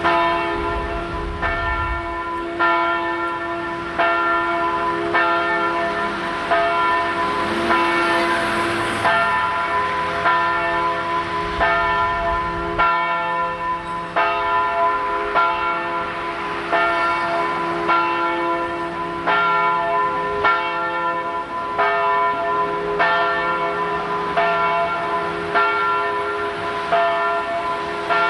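Bells ringing steadily, one stroke about every second, each stroke ringing on in several tones. A low rumble comes in at the start and again about twelve seconds in.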